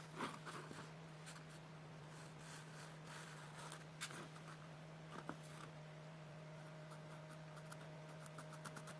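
Faint light scratching and scraping with a few small taps, and a quick run of tiny ticks near the end, over a steady low hum.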